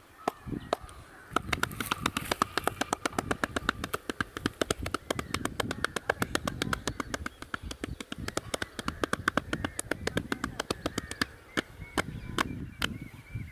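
Rapid, even hand strikes of a percussive head massage, several a second for about ten seconds before stopping, with birds calling faintly in the background.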